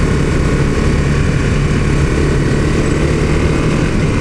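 Honda CRF250M's single-cylinder four-stroke engine running at a steady cruise while the motorcycle is ridden, a constant low drone with no revving.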